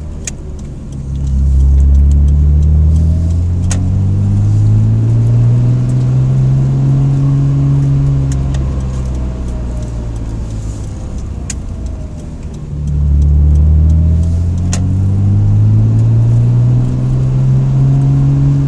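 Car engine heard from inside the cabin, pulling away twice. It comes in strongly about a second in and rises in pitch for several seconds, eases off around eight seconds, then pulls and rises again from about thirteen seconds.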